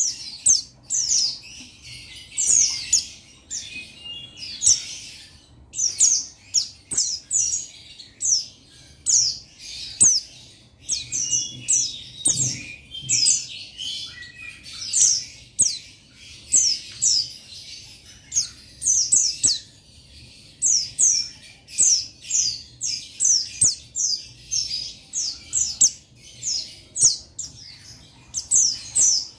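Male white-eye (pleci buxtoni) singing a fast, continuous run of high, thin chirps, each note sliding down in pitch: a male calling out to a rival. A few faint clicks come in among the notes.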